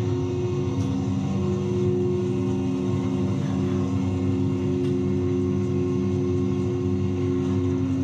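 Chairlift drive motor running at speed: a steady hum made of several constant tones.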